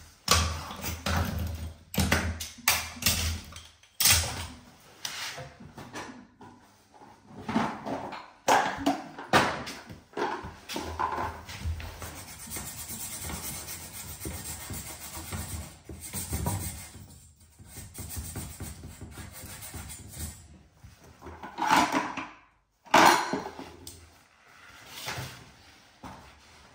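Copper pipes and pipe clips being handled and fitted along a wall: irregular clicks, knocks and rubbing, with the loudest knocks a little before the end.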